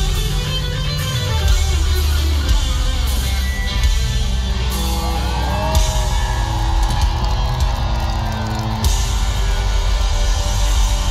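Live rock band playing on stage: electric guitars over a heavy bass line and drums with regular cymbal crashes.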